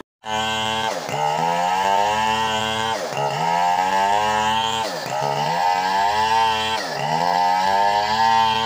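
Two-stroke Stihl chainsaw ripping lengthwise through a coconut palm log. It cuts in after a moment's silence, then runs at high speed, its pitch dipping and climbing back about every two seconds as the bar is worked along the cut.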